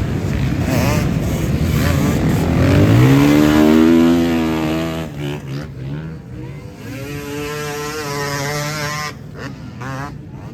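Off-road racing motorcycle engines revving hard. The pitch climbs about three seconds in and cuts off, then a second engine rises and falls away.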